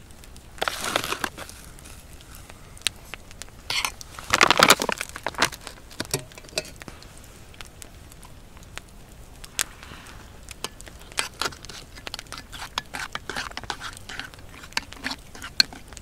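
Wood campfire crackling with scattered sharp pops. Two louder bursts of rustling come through about a second in and again around four to five seconds in.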